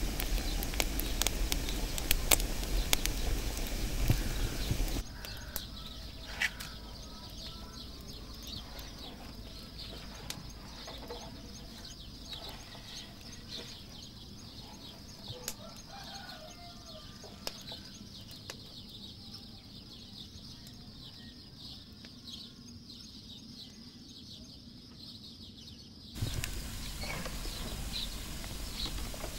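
Straw and wood fire crackling in the firebox of a mud bread oven, densest in the first five seconds and again near the end. In the quieter stretch between there are faint, scattered chicken clucks.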